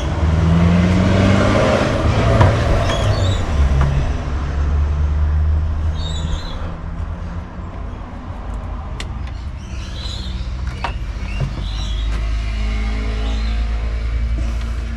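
Low engine rumble of a motor vehicle running nearby, loudest over the first few seconds and then easing off. A few sharp clicks and short high chirps sound over it.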